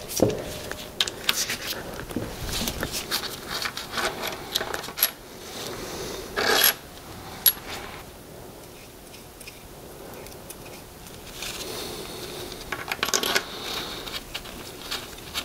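A wrench and connecting-rod cap bolts on an Isuzu 4BD1T diesel's crankshaft: old torque-to-yield rod bolts being loosened and taken out, with repeated metal clicks, scraping and small clinks as the bolts are handled. There are a few sharp ringing tinks around the middle and a quieter stretch after them.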